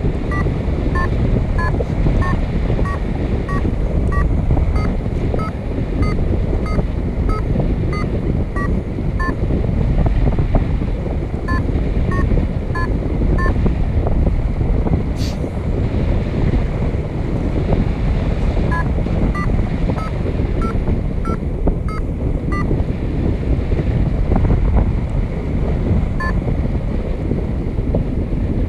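Loud wind buffeting the microphone in paraglider flight, over a paragliding variometer's string of short climb beeps whose pitch shifts a little from beep to beep, signalling lift while thermalling; the beeps drop out for a few seconds now and then. A single sharp click about halfway through.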